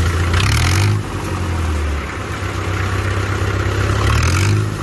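International Harvester diesel tractor engine idling steadily just after a cold start, swelling briefly twice, once in the first second and again near the end.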